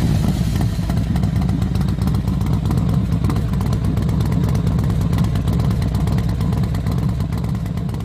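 Motorcycle engine running at a steady idle with a fast, even low rumble, fading out near the end.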